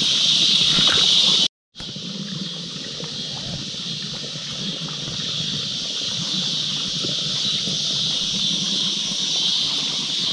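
Steady high-pitched drone of an evening insect chorus, with water trickling underneath. The sound drops out completely for a moment about a second and a half in, then carries on.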